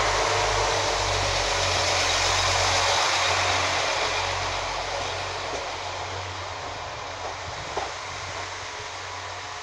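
A Northern Class 195 diesel multiple unit pulling out of the station and running past close by, with a steady low engine hum under the rush of the carriages. From about halfway through it fades as the train draws away.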